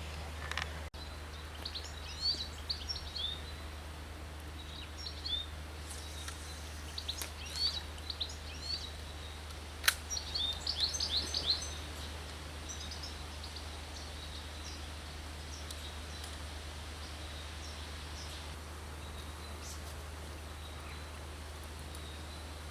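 Small birds chirping and singing in bursts of quick, high notes through the first half, then falling away. A steady low rumble sits underneath, and there is a single sharp click about ten seconds in.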